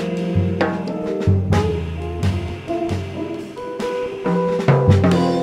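Live jazz trio: a multi-string electric bass plucked with the fingers, over a drum kit with cymbals and an electric guitar, the notes changing quickly.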